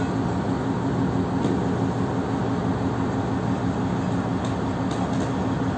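Steady low drone of running ship's machinery, with a few faint ticks near the end.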